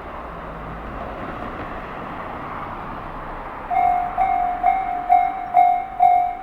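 A rushing rail noise swells, then about four seconds in a Japanese level-crossing warning bell starts up: an electronic 'kan-kan' ding repeating about twice a second, each strike louder than the rushing.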